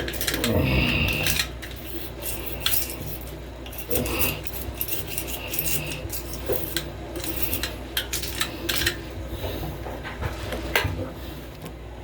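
A blade tool scraping excess cured silicone off aquarium glass: a run of short scratchy scrapes and clicks, some with a brief high squeal.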